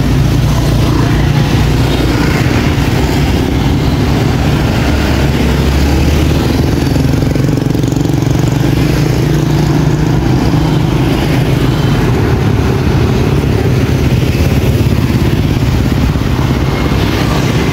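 Small motorbike engine running steadily close by, a low drone amid the noise of scooter traffic.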